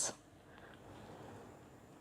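Near silence: faint room tone while a pose is held.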